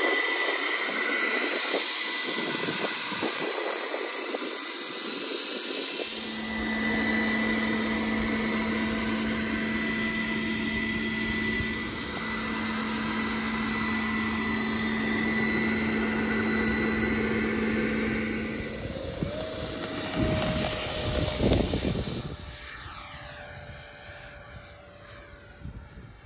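Electric ducted fan of a Freewing L-39 Albatros RC jet (80 mm EDF) running with a steady high-pitched whine. About two-thirds of the way through, the sound shifts and swells into a loud rush as the jet takes off. It then fades and wavers as the jet climbs away.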